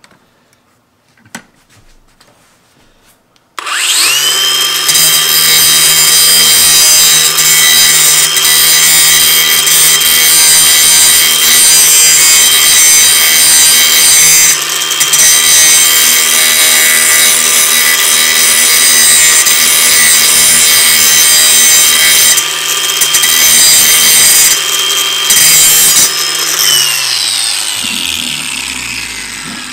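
Angle grinder starting about three and a half seconds in, spinning up with a steady high whine and grinding the edge of a steel lawn mower blade to sharpen it. Near the end it is switched off and winds down with a falling whine.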